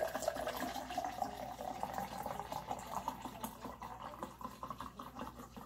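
PegLyte bowel-prep solution poured in a steady stream from its plastic jug into a tall drinking glass. The pitch of the filling sound rises as the glass fills, and the pour grows quieter near the end.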